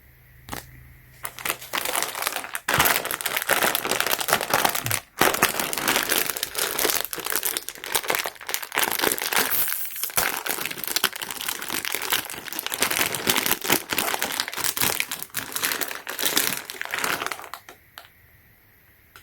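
Plastic packaging of a set of keyboard switches crinkling and crackling as it is handled and opened. It starts about a second in and stops shortly before the end.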